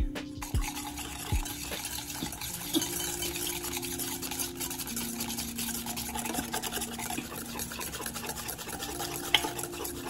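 A metal utensil stirring batter in a stainless steel mixing bowl: a rapid run of scraping strokes against the bowl, with one sharper clink near the end.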